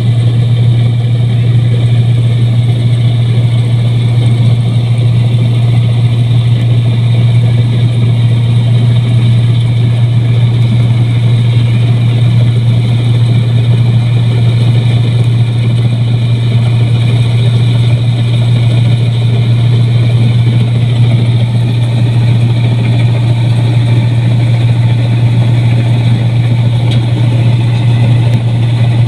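Rice combine harvester's engine running steadily at constant speed: a loud, even hum with machinery noise over it.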